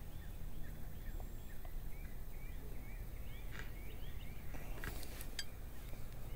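A small bird chirping in a quick series of short rising notes, over a low rumble of wind and handling on the microphone, with a few sharp clicks in the second half.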